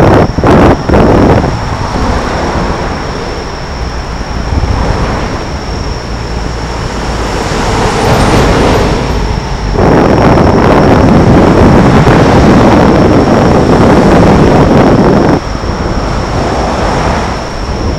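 Road traffic on the Rainbow Bridge, with wind on the microphone: a steady rush of passing vehicles that swells to a louder rush about ten seconds in and cuts off suddenly about five seconds later.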